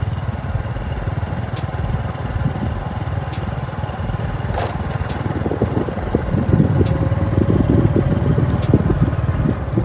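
Wind buffeting a phone's microphone outdoors: a loud, uneven low rumble, with a faint steady hum joining in for a few seconds near the end.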